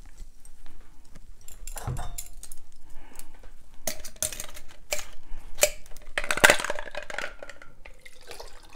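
Glass and metal clinks and knocks of a Boston shaker being taken apart after shaking: the mixing glass comes off the steel tin and a coiled Hawthorne strainer is fitted onto the tin. There are several sharp clinks with a brief metallic ring, the loudest about two-thirds through.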